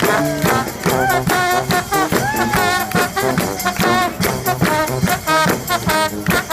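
A street brass band playing live: horns carrying a melody over a steady drum beat.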